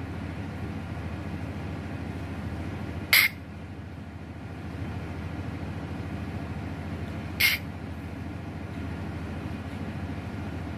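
Steady low engine rumble, with two brief sharp sounds about three and seven and a half seconds in.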